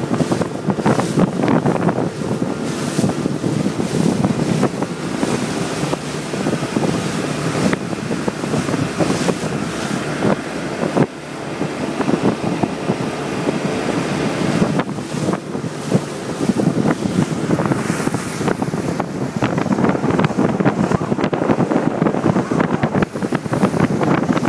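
Small open motorboat underway at speed on choppy water: wind buffeting the microphone over the steady rush of water and wake along the hull.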